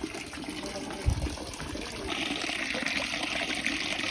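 Water running steadily, getting louder about two seconds in, with a low thump about a second in.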